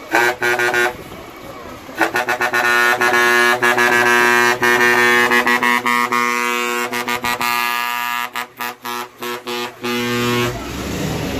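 Fire engine's air horn sounding: a few short blasts, then a long blast held for several seconds that breaks into quick stuttering toots before it stops.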